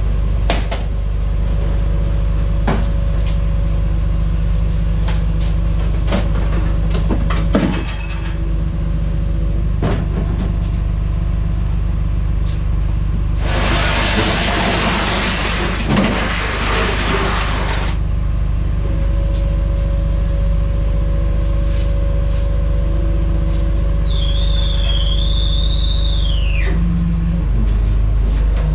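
Steady low engine drone, like an idling vehicle, under scattered knocks of wood and metal being handled. A hiss of about four seconds runs through the middle, and a high squeal falls in pitch near the end.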